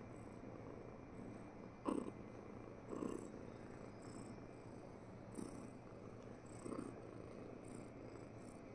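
Ginger long-haired cat purring softly while its head is stroked, with a few short louder swells.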